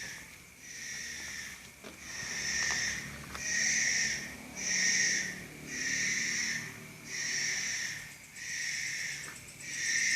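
A rhythmic, breathy hissing like loud snoring, each hiss lasting under a second and repeating about every second and a quarter, about nine times.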